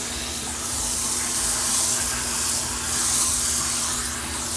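Handheld shower head spraying water onto a wet dog's coat in a bathtub: a steady hiss of spray that swells and dips a little as the stream moves over the fur.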